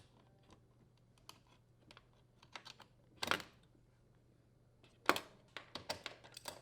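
Scattered small metal clicks and taps from an awl and flathead screwdriver working a retainer clip off a dishwasher door hinge's mounting pin, with louder clusters of clicks about three seconds in and again from about five seconds on.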